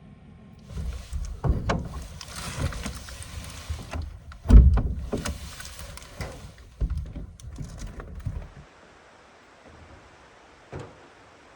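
Fabric rustling, knocks and bumps of someone moving about getting dressed in a truck bed camper, with one heavy thump about four and a half seconds in; it stops about two thirds of the way through, leaving quiet with a single click near the end.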